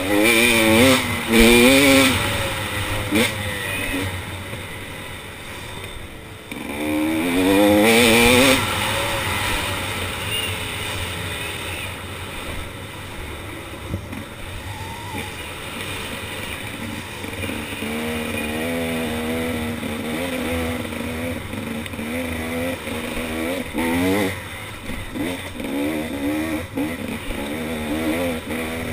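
KTM 300 XC two-stroke dirt bike engine under way, its pitch rising and falling as the throttle is opened and rolled off through the gears. The biggest acceleration comes about seven seconds in, with more short throttle surges toward the end.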